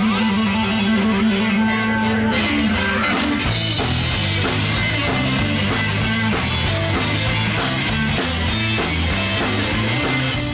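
Live rock band playing: an electric guitar plays a fast repeating low figure, then drums and bass guitar come in with a steady beat about three seconds in.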